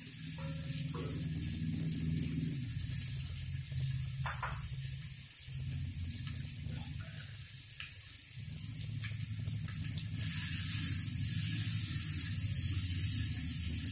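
Chilli-coated boiled eggs frying in a little hot oil in a kadhai: a steady sizzle with a few sharp ticks, getting louder from about ten seconds in. A low steady hum runs underneath.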